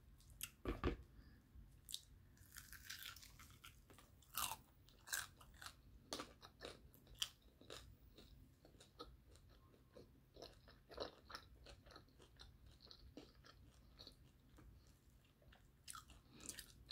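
A person chewing crunchy fried chicken with the mouth close to the microphone: an irregular string of sharp crackles and crunches from the crispy breading, the loudest about a second in.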